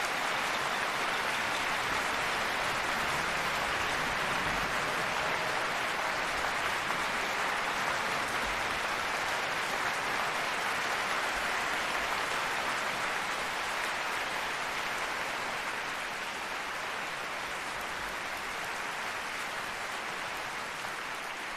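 Audience applauding after the piece ends: dense, steady clapping that slowly fades toward the end.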